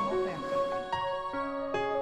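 Calm instrumental background music: sustained notes moving from one to the next every half second or so.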